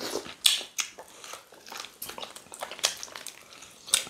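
Close-miked eating of fufu and ogbono soup by hand: irregular wet mouth smacks and chewing clicks, a few of them sharper than the rest.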